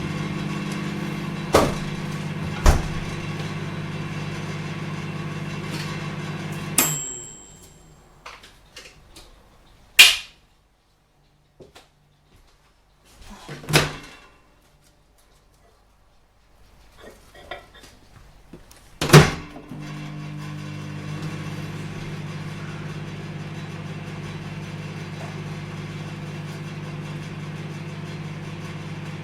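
Microwave oven running with a steady hum and a few light clicks. About seven seconds in it stops with a click and a short high beep. Several loud clunks follow in the quiet, then the hum starts up again about two-thirds of the way through.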